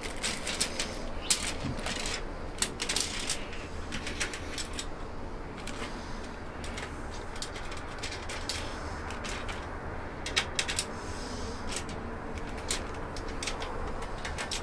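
Irregular light metallic clicks and clinks of small hardware, fiber (nylon-insert) lock nuts, washers and bolts, being handled and fitted while casters are bolted to a steel tool cart.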